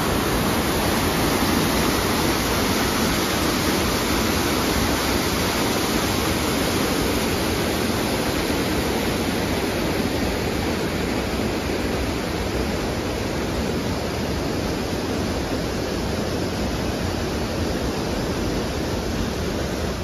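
Fast mountain stream rushing and splashing over boulders below a waterfall, a steady, even rushing noise.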